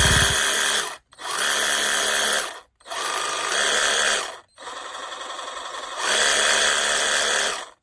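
Cordless 21 V reciprocating saw motor running in about four short spells of a second and a half or so, stopping briefly between them. One spell runs quieter before coming back up.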